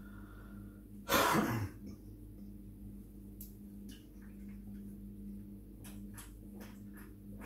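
One loud throat sound from a person about a second in, then a few faint gulps as he drinks from a soft-drink can, over a steady low hum.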